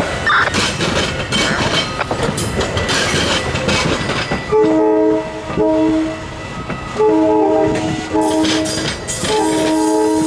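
Metra commuter train rolling slowly past, its wheels rumbling and clicking over the rail joints; about four and a half seconds in, the train's air horn starts sounding a chord in a series of long and short blasts for the grade crossing ahead.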